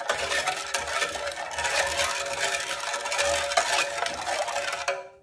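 Wooden spoon stirring milk in a large aluminium pressure cooker, scraping and sloshing in rhythmic strokes to dissolve the sugar; it stops abruptly near the end.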